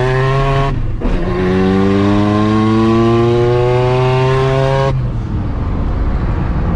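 Mazda RX-7's 13B-REW rotary engine under full throttle, heard from inside the cabin. It rises in pitch, breaks off briefly for an upshift about a second in, then climbs steadily through the next gear. About five seconds in the throttle is lifted, and it drops to a lower steady drone.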